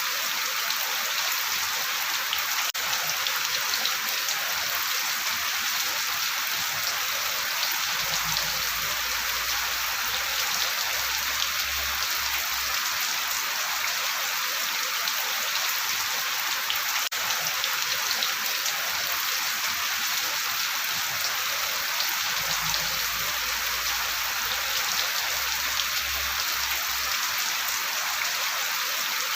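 Steady rain falling, an even, unbroken hiss of many raindrops with no rises or lulls.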